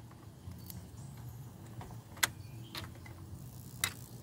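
About four sharp clicks and knocks from handling at the van's fuse box as the M13 fuse is pulled out, over a faint low hum.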